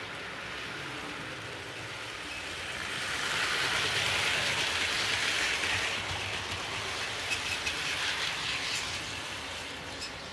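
HO scale model train running past on the track: a rush of wheels and motor that swells, is loudest about four seconds in, then fades away, with a few light clicks near the end.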